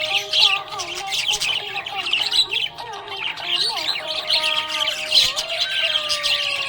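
Budgerigars chirping and squawking in a dense, continuous chatter of rapid high chirps.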